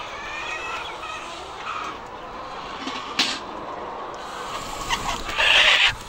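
A crowded flock of chickens clucking and calling in a poultry shed, with a sharp knock about three seconds in and a loud burst of wing-flapping near the end as hens scatter.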